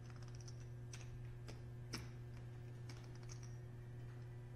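Clay poker chips clicking lightly and irregularly as a player handles a short stack, some clicks in quick little runs, over a steady low hum.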